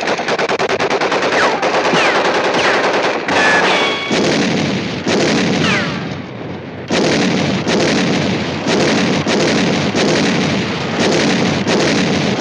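Cartoon war sound effects: rapid machine-gun fire in long bursts, with a few short falling whistles in the first half. After a brief lull about six seconds in, the firing resumes in repeated bursts with short gaps between them.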